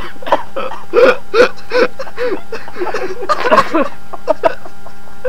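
People laughing and gasping in quick, breathless, high-pitched bursts, an excited reaction just after a lighter has been blown up.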